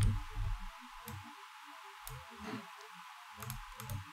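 A few sharp computer mouse clicks, spaced irregularly, over faint low background music.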